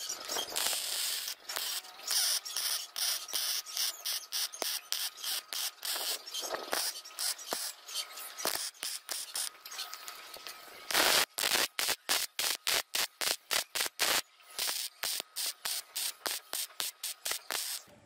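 MIG welding arc crackling and hissing in rapid irregular pops on steel tube. About two-thirds of the way through it gets louder and breaks into short bursts about three a second, as in stitch or tack welding.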